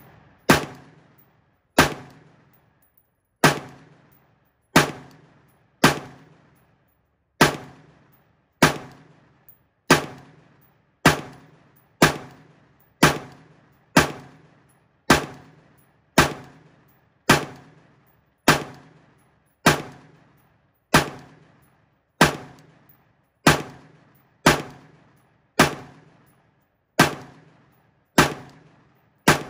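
Unsuppressed LMT MRP external-piston 5.56 mm rifle with a 12.5-inch barrel firing single shots in semi-automatic, about one shot a second at a steady pace, each with a short ringing echo.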